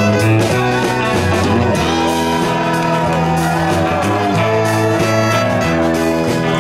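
Live country band playing an instrumental passage, with an electric fiddle over guitars and bass; several notes slide and bend in pitch through the middle of the passage.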